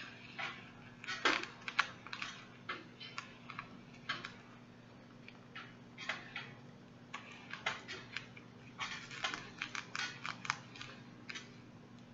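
Hand-sewing a hair weft onto a mesh weaving cap: irregular quick clicks and rustles in clusters as the needle and thread are pulled through and the hands brush the hair and cap.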